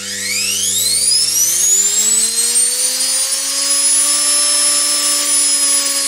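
Washing machine universal (brushed) motor spinning up as its speed controller is turned from very low power to full speed: a whine rises steeply in pitch over about two seconds, then runs steady at full speed with a hiss.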